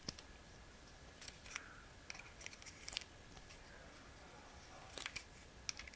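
Faint, scattered small clicks and light taps of a hand tool working against a small RC crawler wheel hub as threaded studs are pushed home, over quiet room tone.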